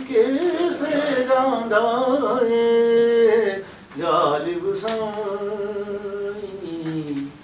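A man's unaccompanied voice reciting verse in a sung, melodic style. There are two long phrases: the first ends on a held note, and the second starts after a short break about four seconds in and sinks slowly in pitch.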